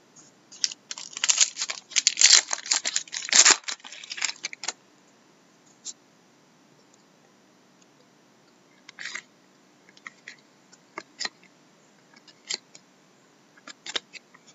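Trading-card pack wrapper torn open and crinkled for about four seconds, then scattered short clicks and rustles as the cards are flipped through by hand.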